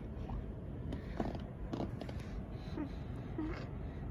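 Steady low rumble of distant city and harbour background noise, with a few short faint tones and clicks over it.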